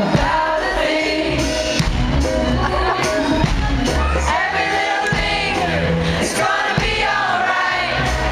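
A live band playing a mid-tempo pop song with sung vocals, and a crowd faintly audible beneath.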